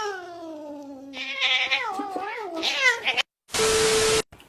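Cat yowling: one long drawn-out meow that falls slowly in pitch, then several shorter wavering meows. Near the end comes a brief, loud burst of hissing noise with a steady tone in it, cut off abruptly.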